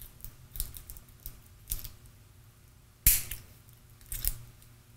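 Small flush side cutters snipping and working thin, soft aluminum transformer winding wire: a few light clicks, the sharpest about three seconds in and another just after four seconds.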